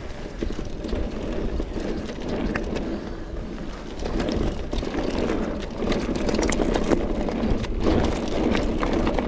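Mountain bike riding fast down a rough track: wind buffeting the action camera's microphone over tyre noise, with short clicks and rattles from the bike over bumps. It gets a little louder about four seconds in.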